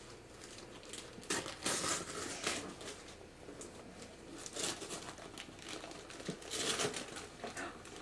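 Gift wrapping paper crumpling and rustling in several short bursts as a child handles wrapped presents.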